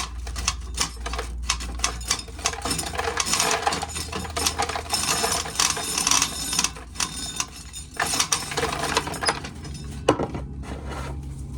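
Dry corn being shelled: a dense, irregular rattle and clicking of hard kernels coming off the cob and falling together.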